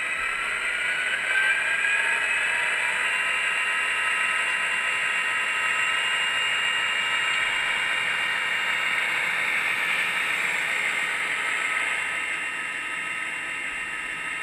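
Sound decoder in an HO-scale SD40-2 model locomotive playing diesel prime mover sound through its small speaker. The engine revs up with a rising whine over the first couple of seconds as the model gets under way, runs steadily, then eases back a little near the end.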